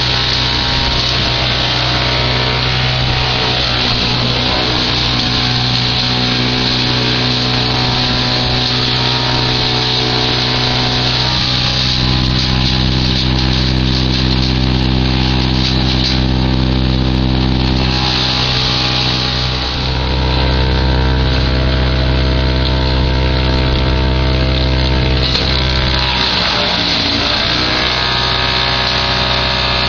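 Fendt 920 Vario tractor and its branch chipper running hard: a loud, steady machine drone with a dense rushing noise over it, the engine pitch shifting a few times.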